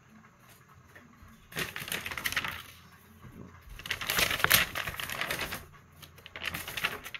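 Crackling, crinkling rustle in three bursts, the middle one the longest.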